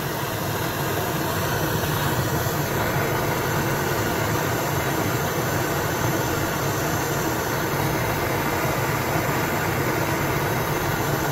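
Two handheld gas torches held side by side, burning with a steady hiss, heating steel red-hot to anneal it before straightening.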